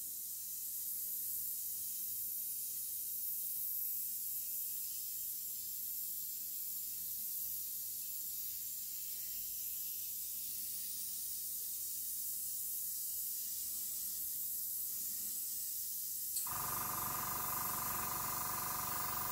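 Fine Art FA-180X airbrush with a 0.3 mm nozzle spraying acrylic paint thinned 1:1 at about 1 bar: a steady high hiss of air and paint. A lower hum joins in about three seconds before the end.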